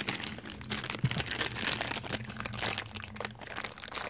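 A small dark plastic bag crinkling and crackling irregularly as it is squeezed and worked at by hand to get it open.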